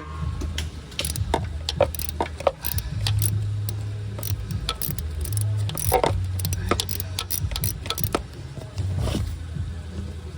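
Hand tools on a broken bolt in an engine block, with a Torx bit driven into the snapped bolt to back it out: irregular sharp metallic taps and clicks, a few of them ringing briefly.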